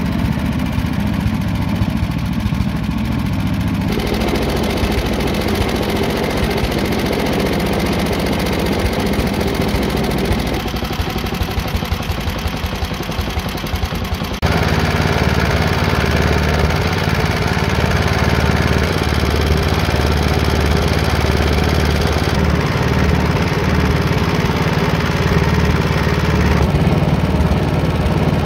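Tecumseh 5 hp single-cylinder engine of a 1963 Atco lawn mower running steadily, with a few abrupt shifts in its level and tone.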